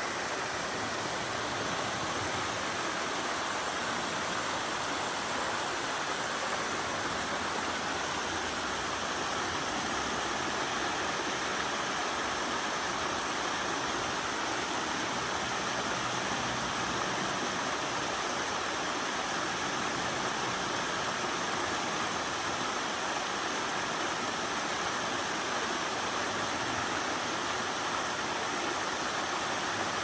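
Steady rush of falling water from a rain-swollen waterfall cascading down a rock face into a rocky creek.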